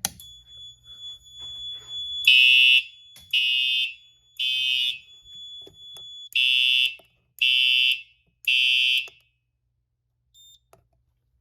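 Fire alarm horn sounding in the temporal code-3 pattern: two groups of three short, loud blasts with a pause between, then stopping. A click at the very start as the pull station is pulled, and a steady high-pitched tone under the first group of blasts.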